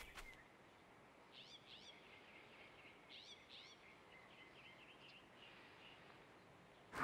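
Near silence with faint bird chirps: a few quick rising-and-falling chirps about a second and a half in and again about three seconds in, then a few softer ones. A sudden loud burst of noise cuts in right at the end.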